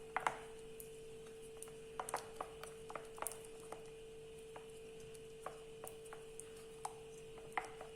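A mixing utensil clicking and tapping irregularly against a bowl while batter is stirred, the clicks bunched about two to three and a half seconds in and sparse after, over a faint steady hum.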